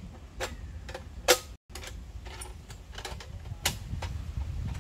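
Irregular clicks and knocks of metal parts as a small portable water pump is handled and set down on a rock, with one sharp knock about a second in, over a low steady rumble.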